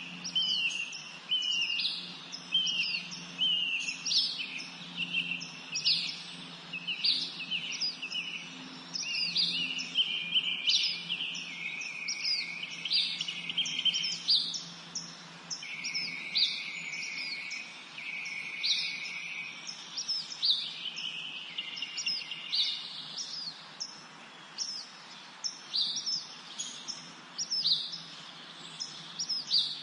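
A dense chorus of small songbirds singing and chirping, many overlapping quick, high, falling notes, with some longer steady trills about halfway through. A faint low hum runs underneath.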